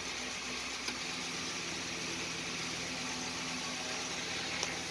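1941 Dodge WC truck's engine idling steadily, heard from inside the cab as a low hum under a steady hiss, with a faint tick about a second in.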